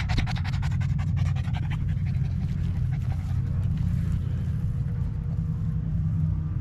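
Boston terrier panting hard and fast, the rapid breaths fading out about two seconds in; the owner puts the hard breathing down to heat or excitement. A steady low rumble runs underneath.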